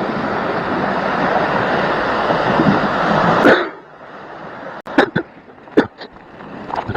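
Sea surf washing against shore rocks, a steady rushing noise that cuts off suddenly about three and a half seconds in. After it come a few short, sharp noises, two of them about a second apart.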